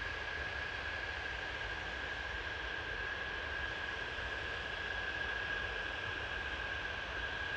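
Antonov An-124-100's four Progress D-18T turbofan engines running at low taxi power as the freighter rolls by. A steady rushing noise with one steady high whine over a low rumble.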